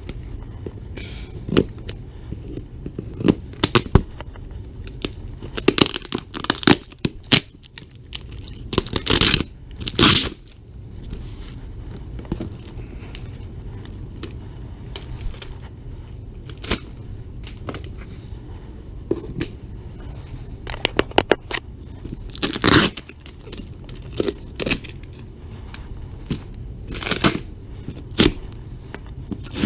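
Scissors cutting the packing tape on a cardboard box and the cardboard being handled and pulled open: an irregular string of sharp snips, scrapes and rustles, over a steady low background hum.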